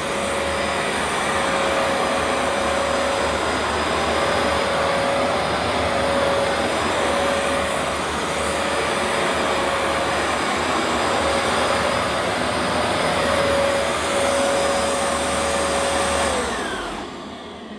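Vax Platinum Power Max carpet washer running, its suction motor giving a steady whine over the rush of air. About sixteen seconds in it is switched off, and the whine drops in pitch as the motor winds down.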